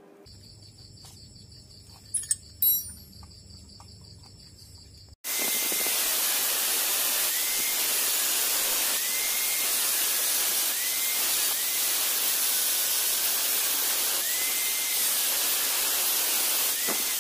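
Angle grinder cutting into the metal casing of a chainsaw engine. It starts abruptly about five seconds in as a loud, steady grinding hiss, with a faint whine that rises and falls several times as the disc bites. Before that there are only a couple of light knocks of handling.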